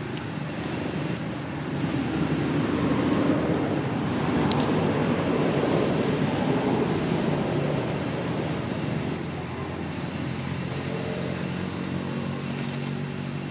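Low, steady engine rumble. It swells a couple of seconds in and eases off in the second half.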